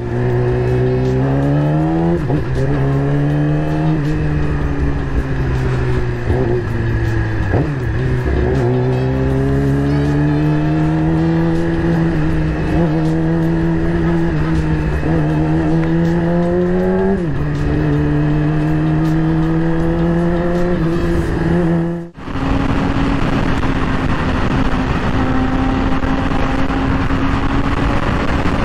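Yamaha R6 inline-four through an Akrapovic full exhaust, heard from the rider's seat at low speed, its pitch climbing and then dropping sharply at each upshift. About three-quarters of the way through it cuts off abruptly, then runs on steadily at high road speed under wind rush.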